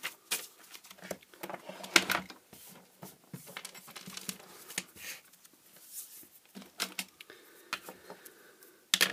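Objects being handled and set down on a workbench, a multimeter moved aside and a spiral-bound notepad laid down: a run of scattered clicks and knocks, loudest about two seconds in and again near the end.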